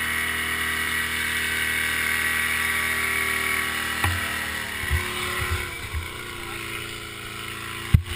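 ATV engine idling steadily, with a few low thumps from about four seconds in; the engine sound grows quieter near the end.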